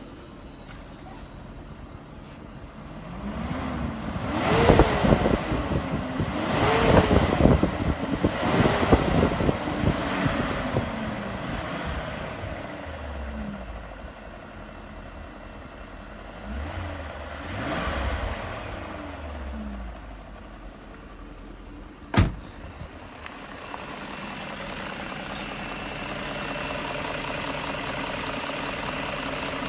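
BMW E38's M62B44TU 4.4-litre V8 revved in quick blips with the car standing: three strong rises and falls in engine speed, then two smaller ones. Between them it idles. A sharp click comes after the blips, and then the engine settles into a steadier, louder running with a faint high whine.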